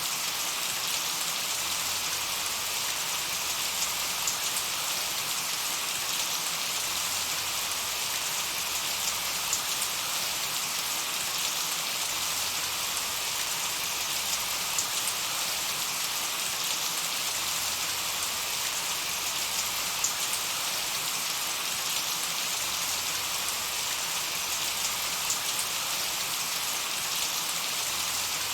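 Steady summer rain: an even hiss of many drops, with occasional single drops ticking louder.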